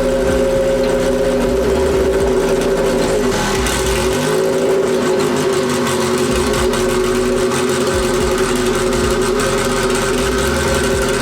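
Turbocharged Honda D16 four-cylinder engine idling steadily.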